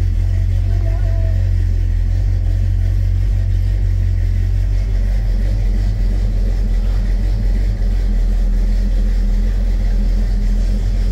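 1965 Pontiac GTO's 389 V8 idling steadily while still warming up after a cold start, heard from inside the cabin as a deep, even running sound.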